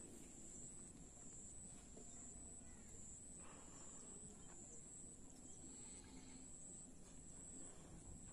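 Near silence: faint outdoor background with a steady high-pitched whine, and a couple of faint breathy puffs as a rubber balloon is blown up by mouth.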